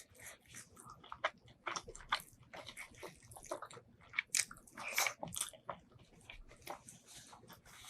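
Close-miked eating of braised pork ribs and white rice: irregular wet biting and chewing smacks and clicks, loudest in a cluster about four to five seconds in.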